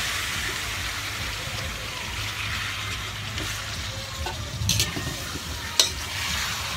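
Cubed pork sizzling as it starts to fry in a hot metal wok with browned onion and garlic, stirred with a metal spoon. Two sharp knocks stand out near the end.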